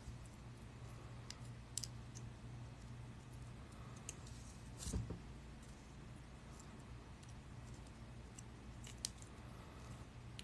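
Faint, scattered metallic clicks and light jingling of small steel paperclip rings being opened and closed with pliers, with a slightly louder click about five seconds in. A low steady hum runs underneath.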